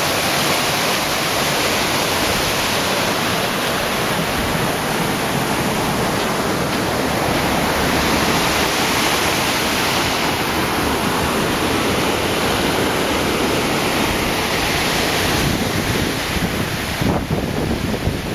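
Rushing water of a mountain stream in spate, swollen with typhoon rain and pouring white over rocks and a concrete weir: a loud, steady rush.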